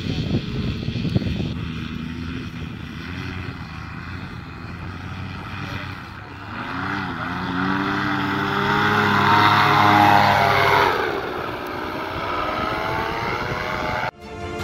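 Paramotor engine and propeller running, its pitch bending and rising as it grows louder around the middle, then falling away; the sound cuts off suddenly near the end.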